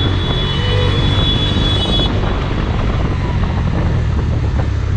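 Yamaha FZ motorcycle's single-cylinder engine running as the bike rides along, a steady low drone. A thin high whine sounds over it for the first two seconds.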